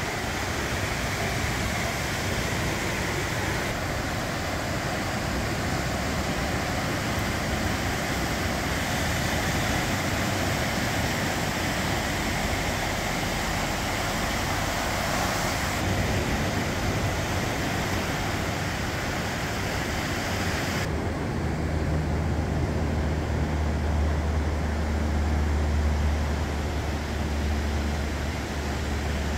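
Ocean surf breaking and washing up a sandy beach, a steady rushing noise. About two-thirds of the way through, the hiss gives way to a deeper low rumble.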